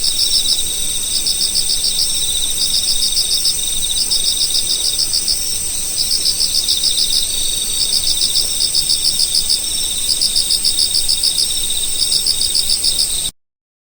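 A chorus of singing insects: several overlapping trains of rapid, high chirping pulses, each repeating about once a second, over a steady high-pitched buzz. It cuts off abruptly near the end.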